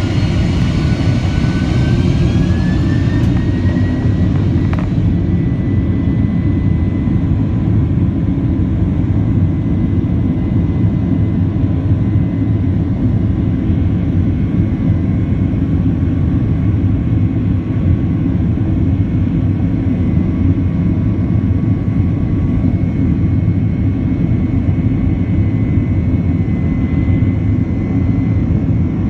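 Boeing 767-300's jet engines heard from inside the cabin on departure: a loud, steady rumble, with an engine whine that rises in pitch over the first few seconds and then holds a steady tone as the engines settle at high power.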